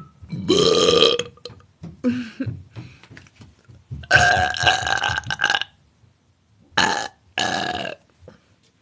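A woman burping several times in a row: a loud burp about half a second in, a weaker one near two seconds, a long burp at about four seconds, then two short burps near the end.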